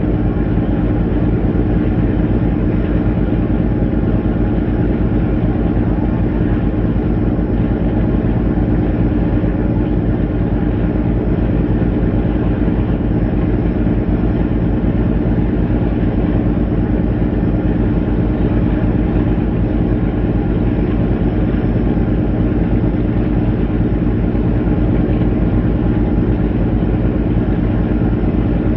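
A vessel's diesel engine running steadily at constant speed: an unchanging drone with a fast, even low beat.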